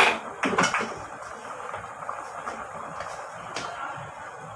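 A metal utensil clinking against a pot of soup: a sharp knock at the start, two more about half a second in, and a lighter one near the end, over a steady hiss.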